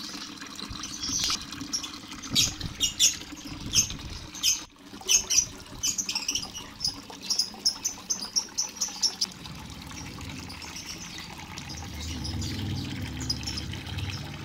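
Lovebirds in a colony aviary calling with short, shrill chirps, several a second, which die away about two-thirds of the way through. A low rumble takes over and grows louder near the end.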